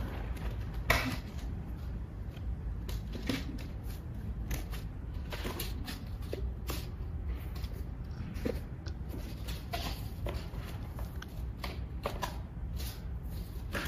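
Pages of a ring-bound colour sample book being handled and turned: scattered light clicks and rustles, with a low steady hum underneath.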